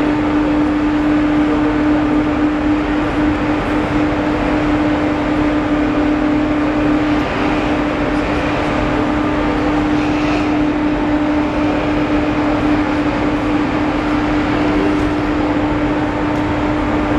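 Overhead travelling crane running while it carries a suspended load: a steady mechanical hum with one constant mid-pitched tone over an even rush of noise.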